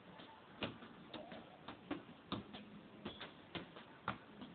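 Faint, irregular light clicks and taps, about three a second.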